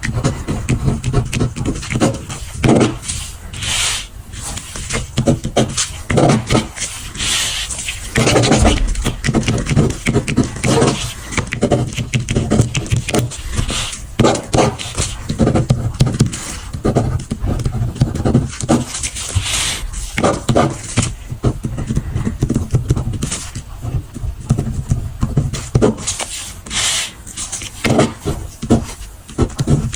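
Close-miked pen scratching and paper rustling while papers are marked, in rapid, irregular strokes.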